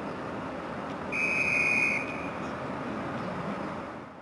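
A single high-pitched whistle blast, about a second long, over steady background noise from the harbour that fades away near the end.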